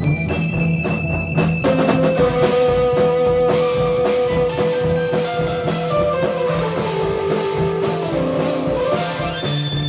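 Improvised rock band jam: a guitar holds long sustained notes over a steady drum kit beat with cymbals. About halfway through, the held guitar line slides downward in steps.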